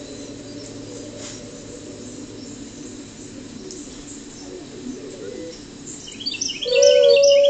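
Timber wolf howling: faint wavering howls with a few bird chirps, then about six and a half seconds in a loud howl begins, one long steady note, with higher calls above it just before.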